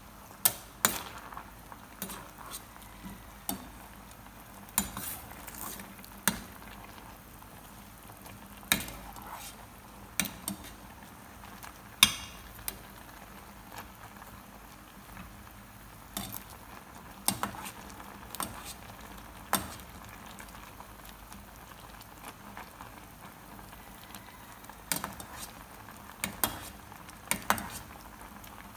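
A metal ladle stirring bok choy in a pot of simmering broth, knocking and clinking against the metal pot at irregular moments, with a faint steady bubbling of the simmering soup underneath.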